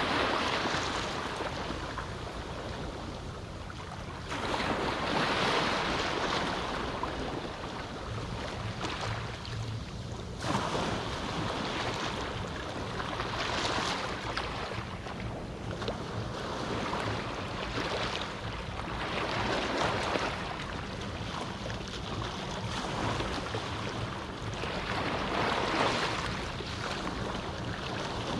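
Small waves of a calm sea washing up on a beach, each wash swelling and fading every few seconds.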